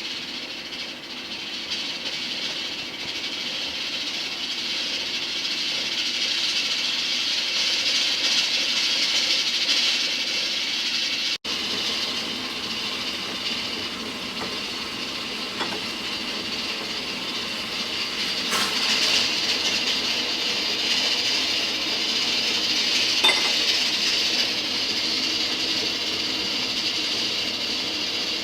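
Electric rice cooker hissing as steam vents during porridge cooking, a steady hiss that swells and eases slightly, with a couple of faint clicks in the second half.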